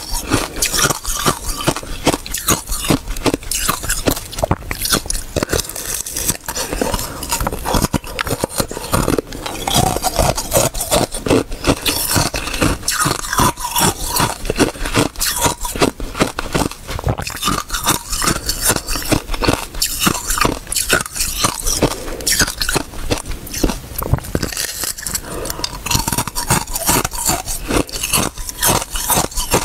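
Thin slab of ice with basil seeds frozen in it being bitten and chewed close to the microphone: a dense, continuous run of sharp crunches and crackles.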